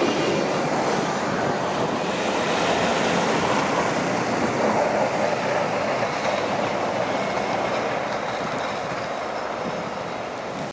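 Snowplows passing, a wing-blade loader and a plow truck, their blades scraping the road over the running engines. The noise is dense and steady and slowly fades as they move away.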